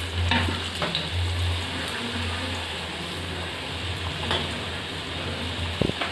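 Phuchka shells sizzling as they deep-fry and puff up in a little hot oil in a steel wok, over a steady low hum. A few light clicks and one sharper knock near the end come from a perforated steel slotted spoon turning them against the pan.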